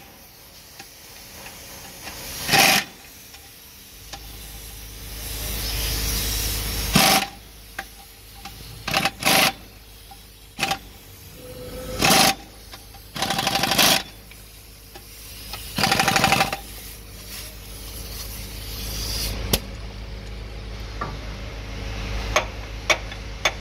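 Power drill running in about eight short bursts of a second or less, used in fitting a truck clutch. A low hum runs between the bursts.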